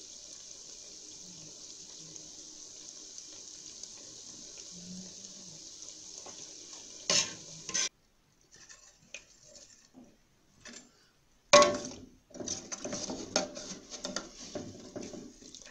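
Chebakia fritters frying in hot oil in an aluminium pot, a steady high sizzle for about seven seconds. After a short gap, a metal slotted skimmer knocks, scrapes and clinks against the pot as the fritters are turned and lifted out of the oil.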